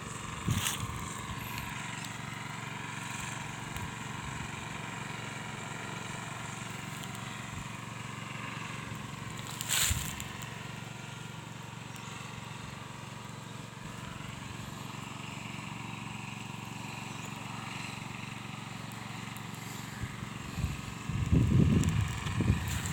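Steady hum of a distant engine over outdoor ambience, with two brief knocks about half a second and ten seconds in and louder low rumbling near the end.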